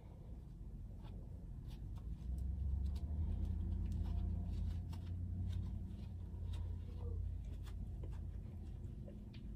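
Faint rustling and small ticks of hair being twisted by hand around foam flexi rods, with a low rumble that swells about two seconds in and dies away a few seconds later.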